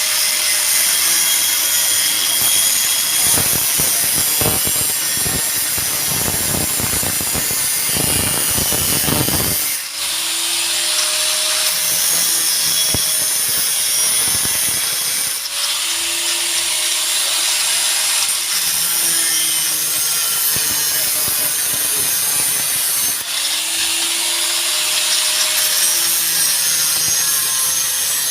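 A power tool cutting during a muffler replacement: a loud, harsh, high-pitched cutting noise, its motor pitch sagging and recovering every several seconds, with a stretch of rough crackling strokes in the first third.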